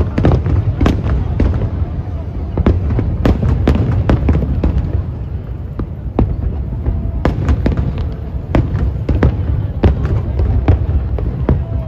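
Aerial fireworks bursting in quick, irregular succession: many sharp bangs over a continuous low rumble from the barrage.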